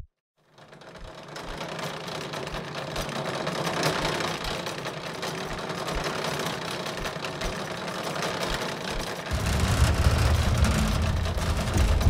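Sound-design track of machinery: a dense mechanical whirring texture fades in, with soft low thumps at fairly even intervals. A heavy low rumble joins about nine seconds in.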